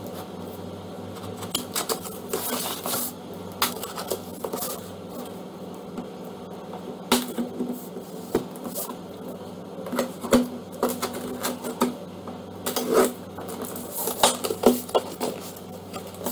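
Utility knife slitting the tape on a cardboard laptop carton, with irregular scrapes, clicks and knocks as the box is handled and turned over, over a steady low hum.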